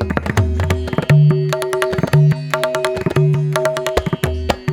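Background music: quick hand-drum strokes over a steady held drone, in an Indian classical style.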